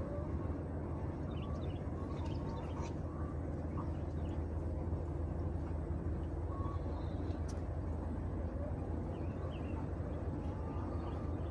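A steady low hum or rumble, with faint, short high chirps scattered through it.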